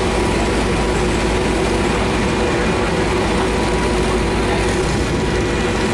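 Engines of a docked Superdong high-speed passenger boat running at idle before departure: a loud, steady drone with a constant hum.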